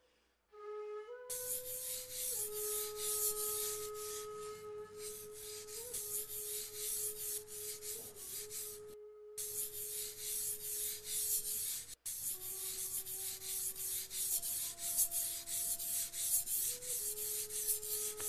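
A steel Japanese kitchen knife stroked back and forth on a wet #120 coarse whetstone: a run of quick rasping strokes as the blade's bevel is ground, with a short pause about nine seconds in.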